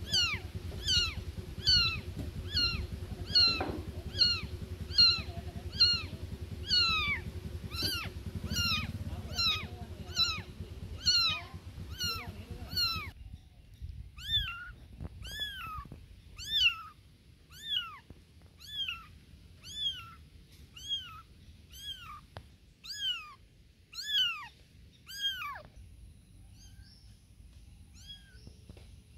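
Very young kittens meowing for their mother cat: a steady run of short, high-pitched cries that fall in pitch, about two a second, slowing to about one a second in the second half and stopping a few seconds before the end.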